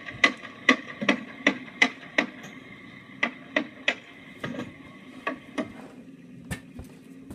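Hammering: sharp, evenly paced blows about two to three a second, a pause of about a second, then slower, uneven blows. A steady machine hum runs underneath, and its higher part drops away near the end.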